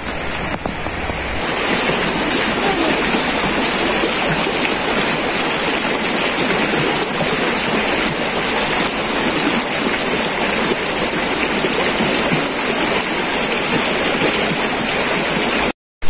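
Shallow forest stream running over rocks: a steady rush and gurgle of water that sets in about a second in and cuts off abruptly just before the end.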